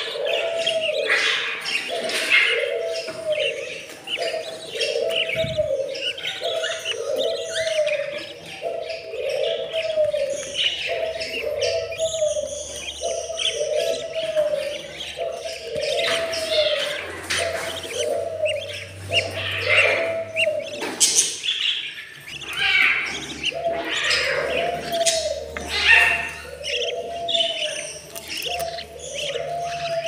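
Budgerigar chicks chirping and squeaking in the nest box, many short high calls throughout. Under them a low, evenly repeated call sounds about once a second, pausing briefly about two-thirds of the way through.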